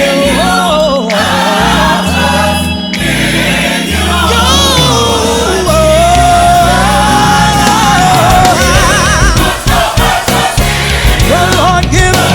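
Gospel choir singing with vibrato over a live band, with a steady bass line underneath.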